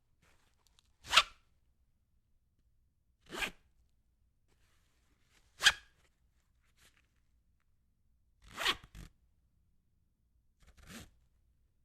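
Strap webbing pulled through a buckle: five separate short, zip-like pulls about two to three seconds apart. The first and third are the loudest and the last is faint.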